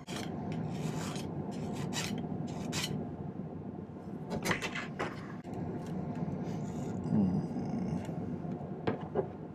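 Irregular rubbing and scraping noises with a few sharp clicks, like tools or hands moving on a work surface.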